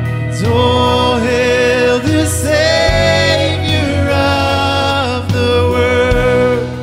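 Man singing a slow worship-song line with long held notes, over strummed acoustic guitar and a low sustained bass underneath.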